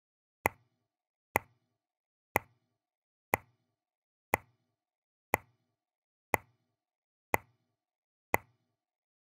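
Grandfather clock ticking: single sharp ticks, evenly spaced about once a second.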